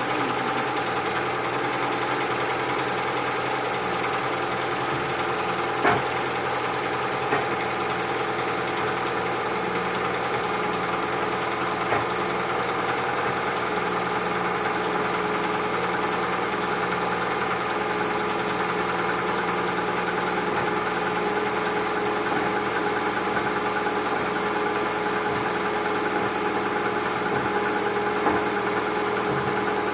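Engine idling steadily after a cold start, with a knocking that the owner takes for piston knock. A few sharper knocks stand out above the steady running, about six seconds in, a second later, near twelve seconds, and near the end.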